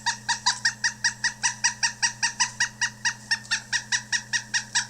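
Pileated woodpecker calling: a long, even series of loud, short notes, about four to five a second, that runs without a break.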